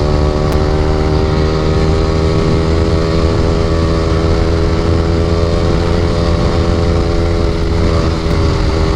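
Yamaha R15 V3's single-cylinder engine running through an aftermarket Akrapovic R9 exhaust, held at steady revs under way, with the pitch sinking slightly near the end.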